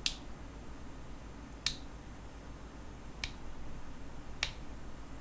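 Four sharp metallic clicks, spaced about a second and a half apart, from a spring-loaded aftermarket CNC aluminium motorcycle lever being worked by hand.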